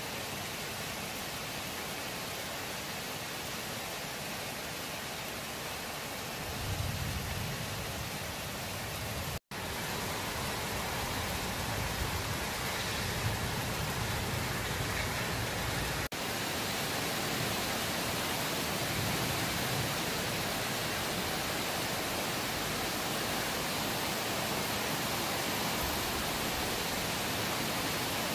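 Steady rain during a thunderstorm, a continuous even hiss, with low rumbles swelling up a few times. The sound drops out for an instant about nine seconds in.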